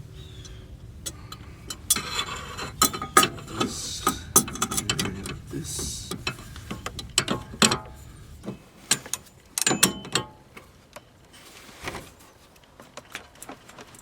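Half-inch drive ratchet clicking in irregular runs of sharp clicks with short pauses, as it turns an inner tie rod removal socket to unscrew the inner tie rod.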